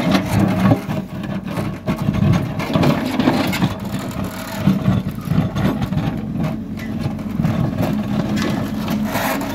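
Hidromek Supra backhoe loader's diesel engine running steadily under load while its backhoe bucket digs a trench in rocky soil, with frequent irregular scraping and knocking of earth and stones against the bucket.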